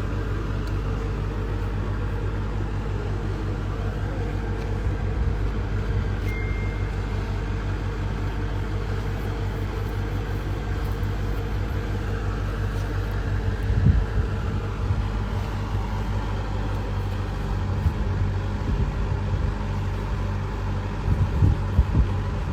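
Steady low rumble of a running motor vehicle, with a few knocks near the middle and near the end.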